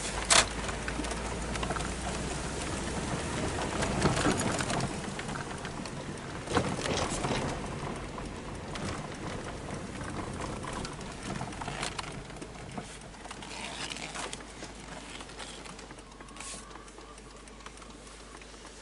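Wind buffeting a handheld camcorder's built-in microphone, with rustling and a few knocks from handling. The sharpest knock comes just after the start.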